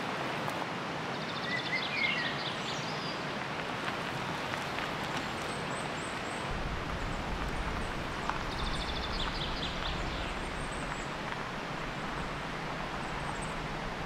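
Steady rush of a river, with birds calling over it: a rapid trill about a second in and again around the middle, and scattered high chirps.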